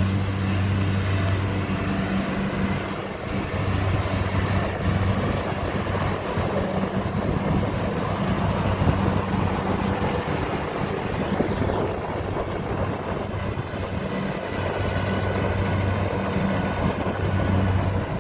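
Kubota DC70 combine harvester working: its diesel engine running steadily under load, with the dense mechanical clatter of the cutting and threshing gear. A low engine hum swells and fades several times.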